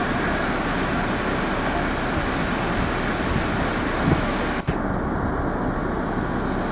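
Steady road traffic noise, an even rushing hum with no let-up, with one short click about four and a half seconds in.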